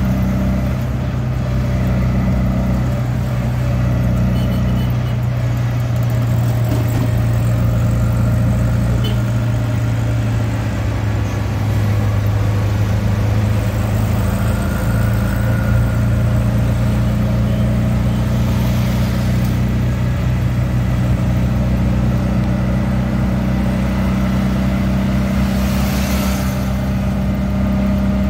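Auto-rickshaw engine running steadily as the three-wheeler drives along, heard from inside, its low hum shifting a little in pitch now and then with speed. A brief hiss passes near the end.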